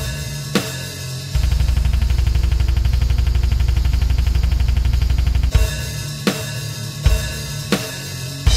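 Old-school death metal played instrumentally: heavy distorted guitar and bass with programmed drums. From about one to five seconds in, the drums play a fast, even run of strokes under a sustained riff, then drop back to slower heavy hits with cymbal crashes.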